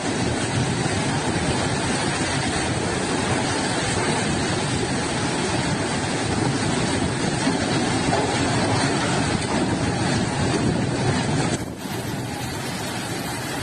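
Steady rushing of floodwater in a swollen, overflowing stream, an even noise without pauses. About twelve seconds in, a cut to another shot of the rushing water, slightly quieter.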